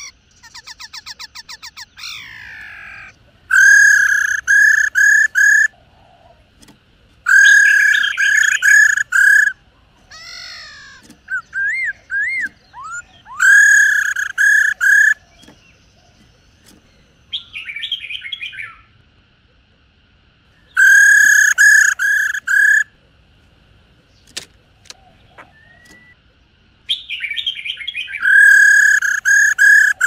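White-cheeked laughingthrushes calling: loud bouts of four or five quick repeated notes come every five to seven seconds. A fast rattling trill comes about a second in, and a few short whistled notes fall in the middle.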